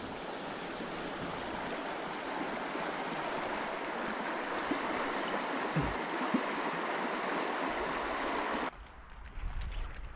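River water rushing steadily. It cuts off abruptly near the end, leaving a much quieter low rumble.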